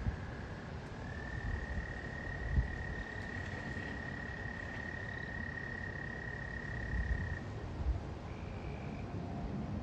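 A frog calling from the pond: one long, steady trill held at a single high pitch for about six seconds, then a second, shorter and higher trill near the end. Under it runs a low rumble with a couple of brief soft thumps.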